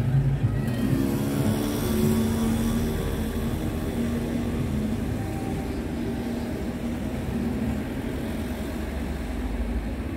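Street traffic: a car drives past with its engine humming, loudest in the first few seconds and fading, over a steady low rumble of road noise.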